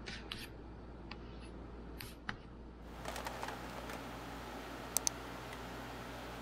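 Hands rubbing a taped-down wood board, a few short scratchy sounds. After about three seconds, light clicks and a sharp double click of a computer mouse at the design software, about five seconds in.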